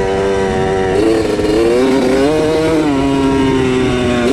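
Dirt bike engine running under way, its pitch rising about a second in with the throttle and dropping back a little before three seconds in, then holding steady.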